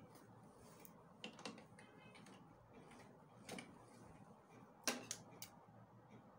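Quiet handling at a stopped sewing machine: cloth rustling and a few small, scattered clicks, the sharpest about five seconds in.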